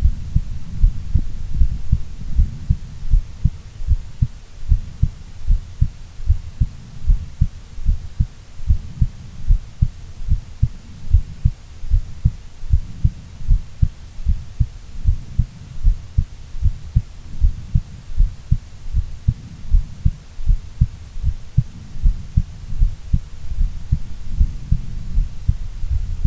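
A woman's heartbeat, a steady even rhythm of short low thumps.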